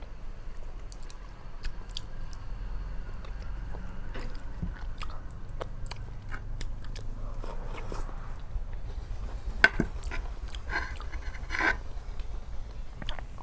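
Close-miked chewing and biting of rice and chicken curry: wet mouth clicks and smacks, with a few louder, crunchier bites about ten seconds in.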